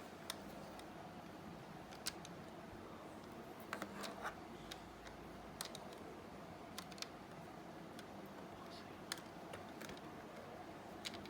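Scattered, irregular sharp clicks and handling knocks from a plastic VR box headset being handled as a phone is fitted into it, faint over a steady low hum.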